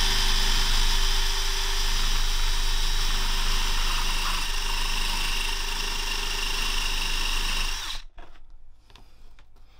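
Cordless drill spinning a Dremel cutting disc, cutting into the plastic of a car key fob housing: a steady motor whine that stops abruptly near the end, followed by a few faint clicks.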